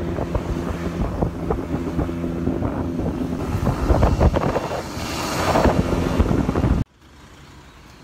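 Scooter engine running while riding, with heavy wind buffeting on the microphone; it cuts off abruptly near the end, leaving a much quieter outdoor background.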